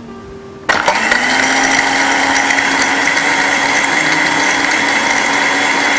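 Anex electric blender switched on less than a second in: the motor spins up with a brief rising whine and then runs steadily at full speed, blending a jug of water, ice cubes and mint leaves.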